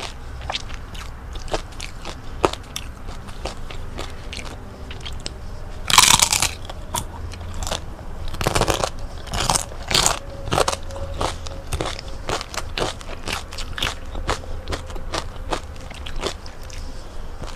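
Crispy fried chicken-skin chicharon being bitten and chewed close to the microphone: crackling crunches throughout, the loudest about six and eight and a half seconds in.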